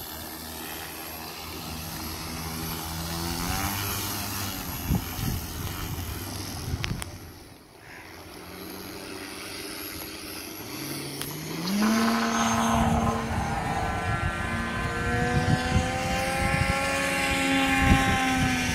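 Electric motor and 22x10 propeller of a large RC Extra 300 aerobatic plane, an Xpwr 40cc motor on a 12S LiPo battery, whining as the throttle is worked on the ground. The pitch rises and falls, dips about eight seconds in, then climbs steeply about twelve seconds in to high power for the takeoff, and holds high with slow pitch changes as the plane flies.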